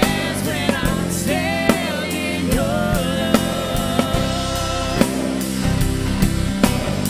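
Live contemporary worship band playing: a woman sings the lead melody over acoustic guitar, electric guitar, keyboard and a drum kit keeping a steady beat.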